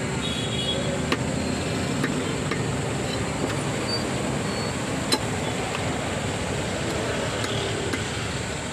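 A fishmonger's knife knocking a few times on a wooden chopping stump while a fish is cleaned, over a steady background din like road traffic. The sharpest knock comes about five seconds in.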